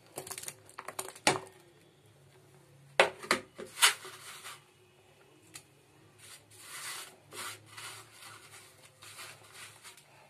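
Silicone spatula knocking and scraping in a nonstick pan of simmering milk as lumps of date-palm jaggery (patali) are dropped in and broken up. There are sharp clicks, loudest about three to four seconds in, then softer rubbing as the milk is stirred.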